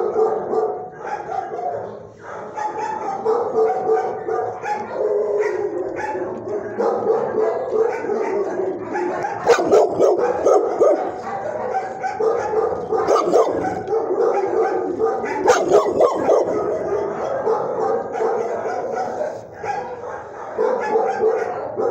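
Many dogs in a shelter kennel block barking at once, a continuous overlapping din of barks that swells louder around the middle.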